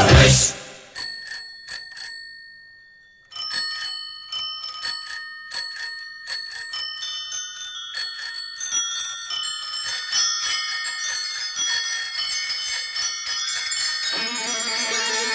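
Many bicycle bells ringing in a recorded song's bell interlude: a few single rings at first, a short pause, then a thickening flurry of overlapping rings. Near the end the band comes back in.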